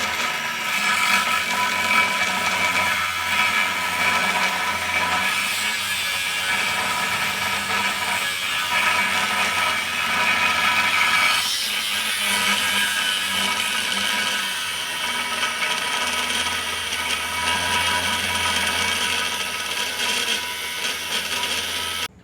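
Angle grinder cutting stainless steel plate, running continuously with a steady whine and a hissing grind. It cuts off abruptly at the very end.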